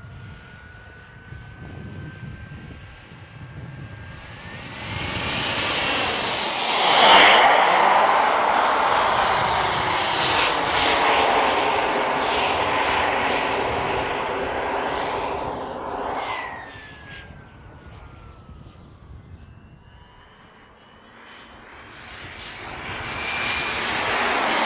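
Kingtech K80G2 model jet turbine running on diesel as the RC jet flies past. Its whine rises in pitch as it closes in and is loudest in a fast pass about seven seconds in. It stays loud for several seconds, then fades with falling pitch after about sixteen seconds, and builds again near the end as the jet comes back.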